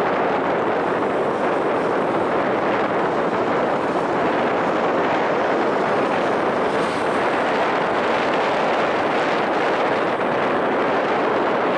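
Boeing 777-300ER's twin GE90 turbofan engines running at low taxi power as the airliner lines up for takeoff: a steady, even rush of jet noise with no rise in pitch.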